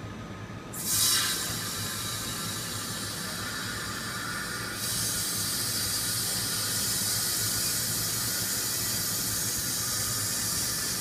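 Air hissing from a micro gravure coating machine: a short burst about a second in, then a steady hiss that comes on more strongly about five seconds in and holds. A faint low machine hum runs underneath.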